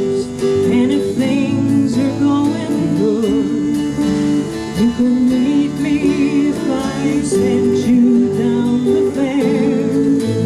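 Folk band playing live: acoustic guitar and dulcimer over keyboard and bass, with a wavering melodic line above.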